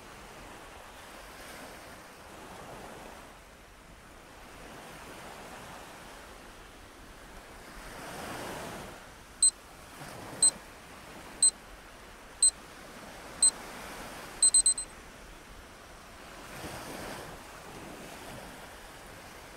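Ocean surf washing in and out, swelling and fading every few seconds. About halfway through, five short high electronic beeps a second apart count down the timer's last seconds, followed by a quick triple beep marking the end of the exercise.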